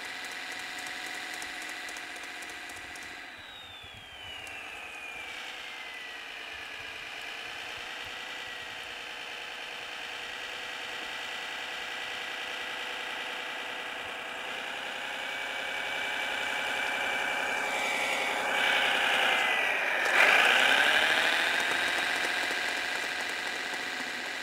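Engine sound from a Servonaut SMX sound module on a Kyosho Blizzard DF-300 radio-controlled snow groomer, running steadily. A whine falls in pitch about four to seven seconds in. The sound dips and rises in pitch and is loudest about twenty seconds in.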